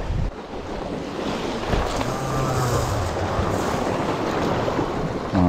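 Sea surf washing against a rocky shore, with wind buffeting the microphone.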